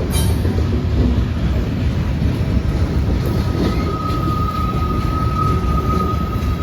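Freight cars rolling past with a heavy, steady low rumble and a sharp clank at the start. About halfway through, a steady high-pitched wheel squeal sets in and holds.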